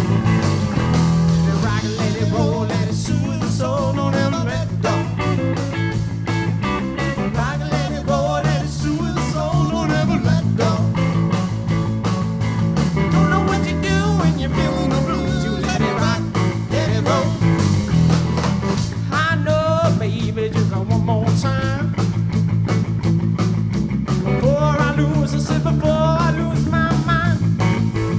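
A live three-piece band, electric guitar, electric bass and drums, playing an uptempo rock and roll number.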